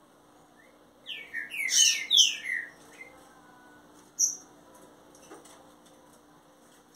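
Green-winged saltator (trinca-ferro) singing a short loud phrase of whistled, gliding notes about a second in, followed by a single short high note about four seconds in.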